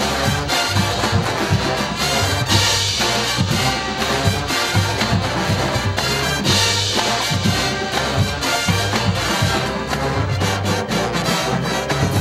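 Marching band playing loudly: a brass section of trumpets and trombones over drums with a driving, steady beat.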